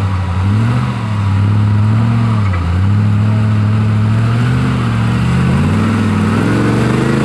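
Engine of a modified off-road trial vehicle pulling at low revs as it crawls over rocks; the revs rise and fall several times and climb near the end.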